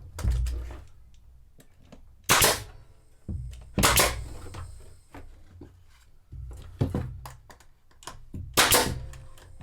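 A series of sharp knocks at irregular intervals, the four loudest a second or two apart, ringing briefly in a small room: the sound of hand work on wood during cabinet building.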